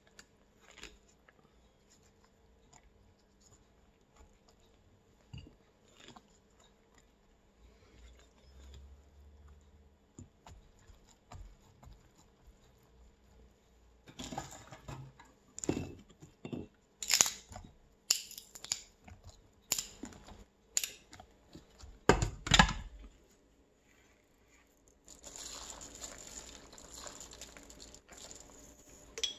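Hands handling chard leaves and stalks in a stainless steel pot. Quiet rustling gives way, about halfway through, to a run of sharp clicks and knocks against the pot, then a soft hiss near the end.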